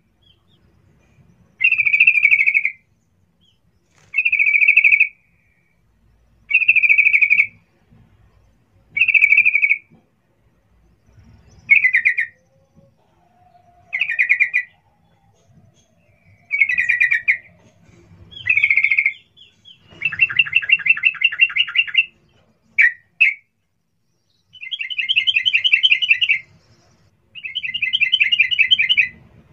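Yellow-vented bulbul calling in a cage: short bubbly phrases repeated about every two seconds. In the second half they give way to longer, fast chattering trills, with a quick double note in between.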